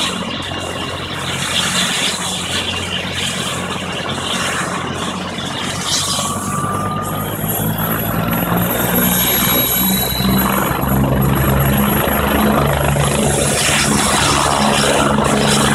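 Rescue helicopter running on the ground before takeoff: turbine whine with the rhythmic beat of the main rotor. From about six seconds in, a high steady whine joins and the sound grows gradually louder as the helicopter builds power for takeoff.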